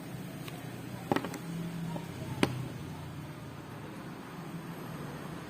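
A few sharp clicks and taps, a double one about a second in and a single one near the middle, over a low steady hum.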